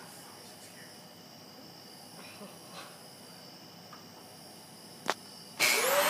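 A faint steady high-pitched background hum, then a sharp click about five seconds in, and half a second later a canister vacuum cleaner switching on, its motor spinning up with a rising whine into a loud steady rush of suction.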